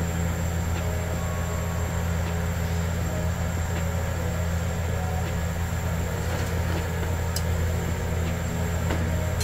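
A steady low hum with a faint, thin high whine over it, unchanging throughout, and a single light click near the end.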